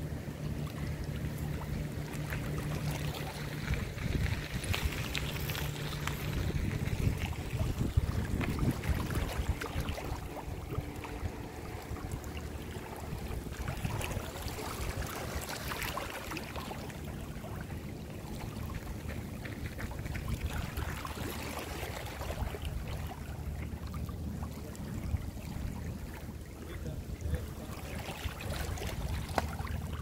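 Waterside ambience: water lapping and wind buffeting the microphone, with a steady low engine hum underneath, strongest in the first few seconds.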